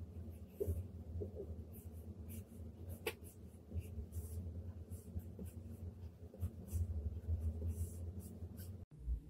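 Stylus nib scratching and tapping on the screen of a Huion Kamvas Pro 19 pen display in quick, short, irregular strokes, over a low steady hum. The sound drops out for an instant near the end.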